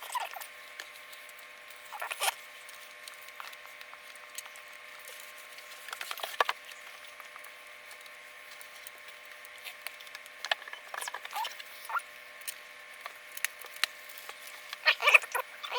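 Small plastic building bricks being handled and pressed together: scattered clicks and light rattles in short clusters a few seconds apart, busiest near the end.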